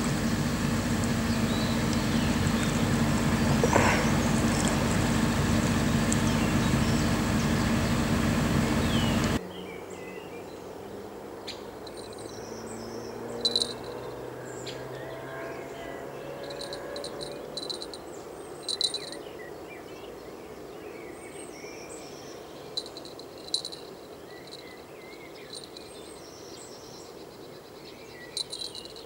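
A loud, steady mechanical drone with a low hum, which stops abruptly about nine seconds in. After that comes a quiet outdoor background with short, high bird chirps every few seconds.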